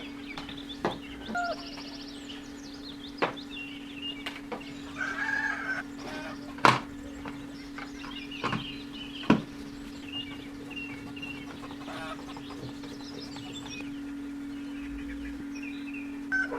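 Chickens clucking in the background over a steady low hum, with scattered sharp clicks and knocks, the loudest two about seven and nine seconds in.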